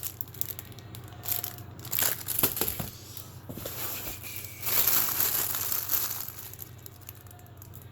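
Packaging crinkling and rustling as items are handled and unwrapped, with a few sharp crackles in the first half and a louder stretch of rustling about halfway through.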